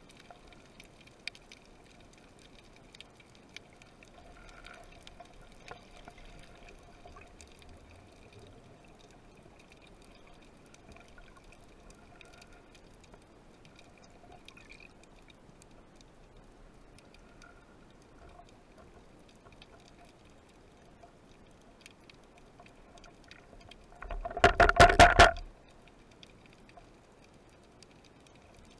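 Underwater ambience heard through a diver's camera housing: a faint steady background with scattered small clicks and crackles. Late on, a loud rapid run of knocks lasts a little over a second.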